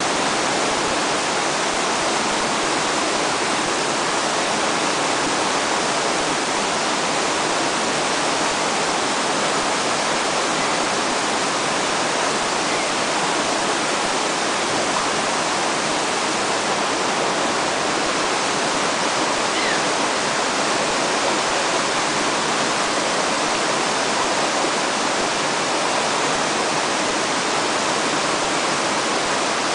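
Fast-flowing river current rushing steadily, an even, unbroken wash of water noise.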